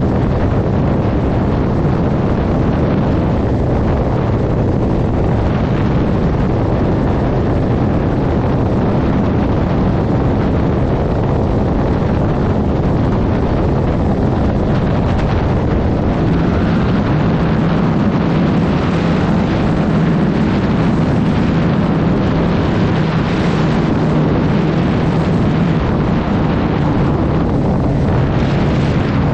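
Heavy wind noise buffeting the microphone at motorway speed, over a vehicle engine droning steadily at cruise.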